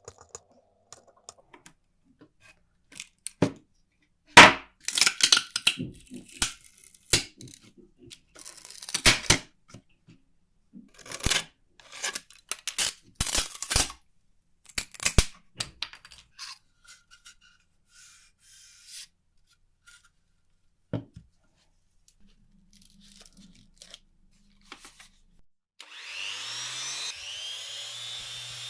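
Irregular short strokes and knocks of hand work on wood. Near the end a small electric motor spins up to a steady whine, as of a rotary tool.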